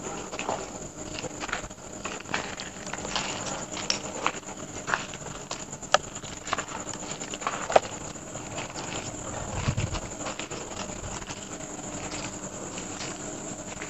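Footsteps walking over the ground, with scattered sharp clicks and a low thud about ten seconds in, over a faint steady hum.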